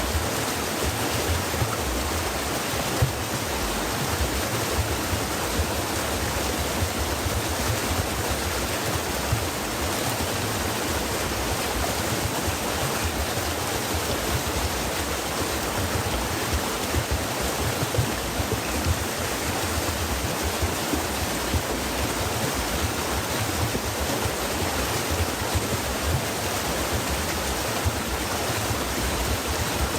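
Stream water flowing and babbling over stones, a steady rushing with small splashy flickers.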